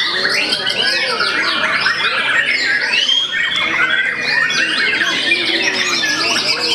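White-rumped shamas (murai batu) singing hard and without pause from their contest cages, several birds overlapping in a dense stream of fast whistles, trills and harsh notes.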